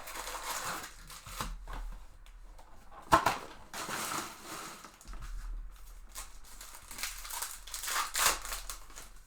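Crinkling and rustling of trading-card packaging as packs are torn open and cards handled, with a sharp snap about three seconds in.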